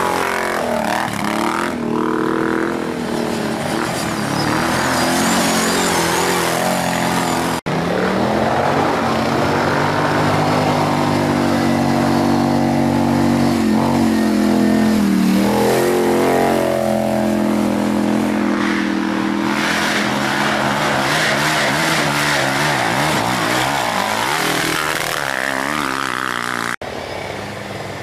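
Quad bike (ATV) engines revving hard under load as they climb a steep dirt track, the pitch rising and falling repeatedly with the throttle.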